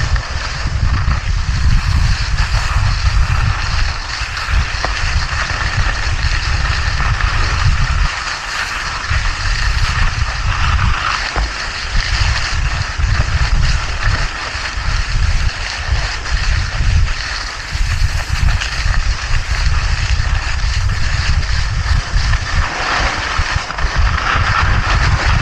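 Wind buffeting the microphone in a gusty rumble, over a steady scraping hiss of skis sliding over snow during a downhill run.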